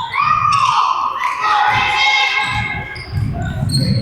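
Basketball being dribbled on a gym floor, with low thuds and long, high sneaker squeaks that bend in pitch in the first couple of seconds.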